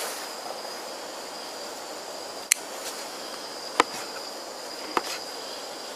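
Kitchen knife chopping vegetables on a small plastic chopping board: three sharp taps a little over a second apart, over a steady hiss.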